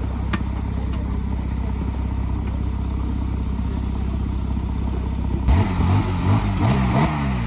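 Porsche 911 Targa GTS flat-six engine running steadily at a low idle, then revved sharply several times from about five and a half seconds in, the pitch rising and falling with each blip.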